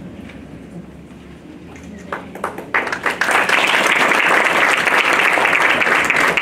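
A few scattered claps about two seconds in, then an audience breaks into steady applause.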